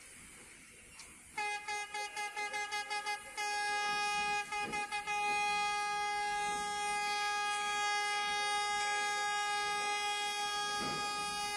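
A vehicle horn, quiet at first, then a fast run of short toots about a second in, then a long continuous blast on one steady pitch with a couple of brief breaks.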